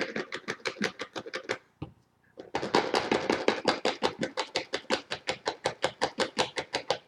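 Rapid, even tapping on a container, about eight taps a second, while thick homemade conditioner is worked into a plastic bottle. The tapping stops briefly just before the two-second mark, then goes on steadily.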